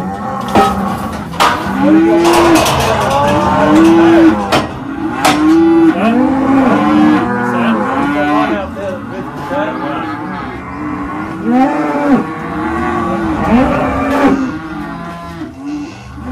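Many cattle bawling in the yards, their calls overlapping almost without a break, with a few sharp knocks among them.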